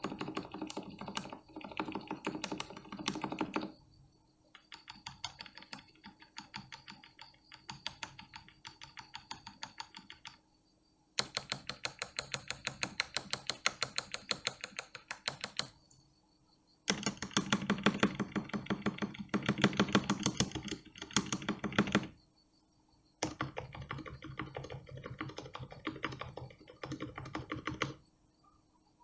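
Typing on a GK61X mechanical keyboard with lubed and filmed Gateron Milky Black linear switches, the board sitting directly on the desk without a desk mat. The keystrokes come in rapid runs, with several brief pauses between bursts.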